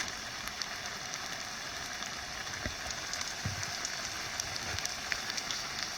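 Hunter's-style campfire of damp wood burning, with a steady hiss and scattered light crackles and pops.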